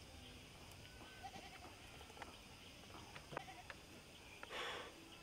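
Faint light taps and a short rustle from bamboo poles and cord being handled and lashed together, over a steady chirring of insects.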